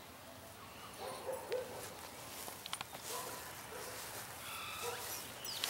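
Faint outdoor background with a few short animal calls and a couple of brief clicks in the middle.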